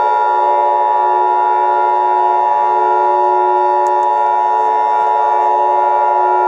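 Emergency Alert System attention tone: a loud, steady chord of several held pitches.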